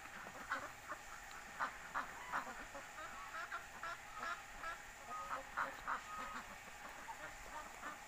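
Domestic geese and ducks calling, a rapid run of short honking calls.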